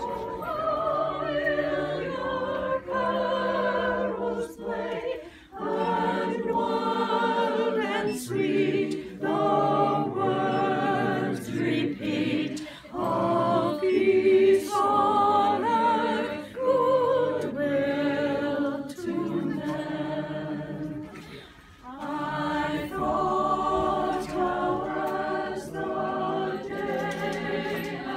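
A small group of carolers, men and women, singing a Christmas carol in parts without instruments, in sung phrases broken by short breaths.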